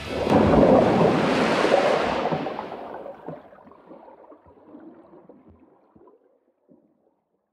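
A rush of surf-like water noise, as of a wave washing in, that swells suddenly and then fades away over about six seconds, the high hiss dying out first.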